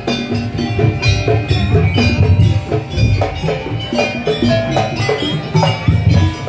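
Madurese daul music: a percussion ensemble of drums and tuned metal percussion playing a steady, driving rhythm.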